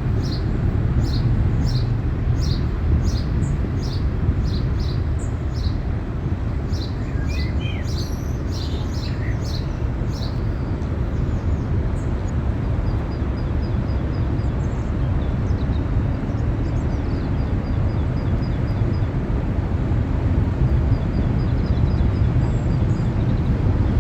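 A steady low rumble runs throughout. Over it, a small bird chirps repeatedly, about twice a second, for the first ten seconds or so, then gives fainter, sparser calls.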